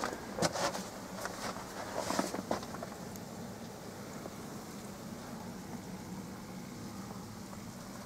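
A few crunching footsteps on snow and ice in the first couple of seconds, then a steady low rumble.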